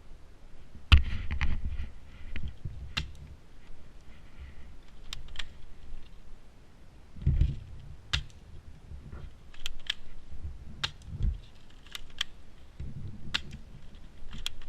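Irregular sharp clicks, roughly one a second, with a few dull low thumps, the loudest about a second in.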